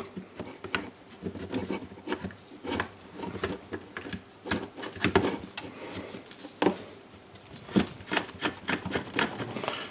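Irregular small clicks, taps and rubbing as the plastic housing and internal parts of a cordless impact wrench are handled and fitted together during reassembly.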